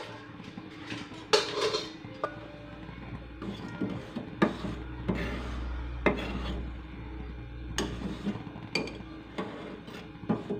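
Metal ladle knocking and scraping against the sides and bottom of an aluminium pot, stirring palm sugar discs in water, with irregular sharp clinks over a rubbing scrape. A low steady hum runs underneath.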